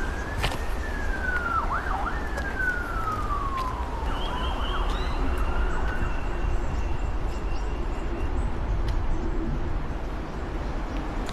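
An emergency-vehicle siren wailing: a single tone rises slowly in pitch, falls, then sweeps up again and falls away over the first four seconds. A steady low rumble runs beneath it.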